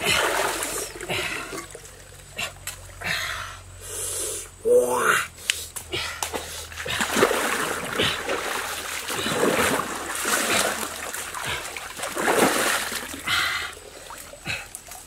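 Irregular splashing and sloshing of shallow stream water as a man wades and plunges a woven basket trap into it to catch fish. About five seconds in there is a short vocal sound, the loudest moment.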